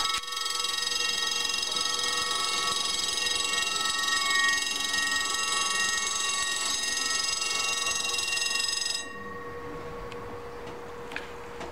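Level-crossing warning bell ringing steadily as the barrier closes, the signal that a train is approaching; it cuts off suddenly about nine seconds in.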